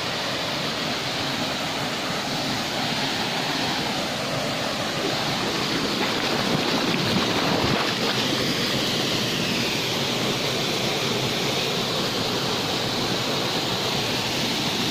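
Waterfall's steady rush into its plunge pool, with water splashing around wading feet about halfway through.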